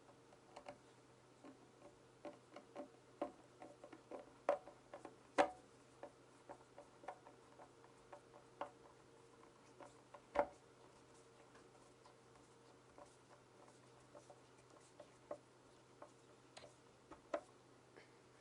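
Irregular light clicks and taps of small hand work with a wooden part or tools, with a couple of louder knocks about five and ten seconds in, over a steady low hum.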